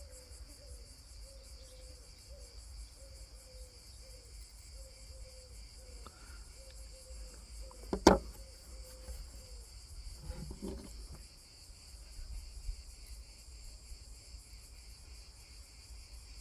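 Crickets chirring steadily in the background, with one sharp click about halfway through and a softer knock a couple of seconds later.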